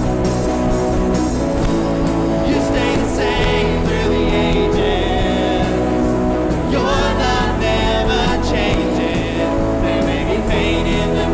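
Live worship band playing with singing: steady bass and guitar chords under a sung melody.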